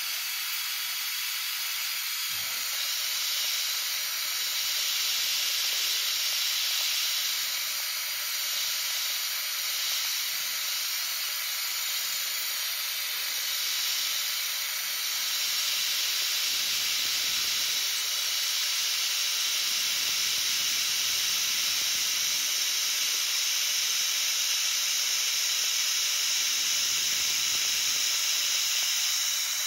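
End mill on a vertical milling machine taking a finishing cut around a pocket in an aluminum block, with a steady high hiss.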